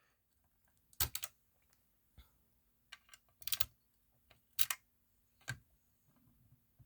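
A few sharp clicks and taps at irregular intervals, like small devices being handled, over a faint steady hum.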